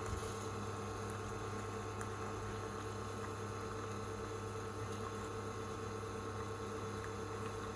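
Keurig K-Compact coffee maker brewing a cup of coffee: a steady pump hum with bubbling as the hot water is forced through the K-Cup.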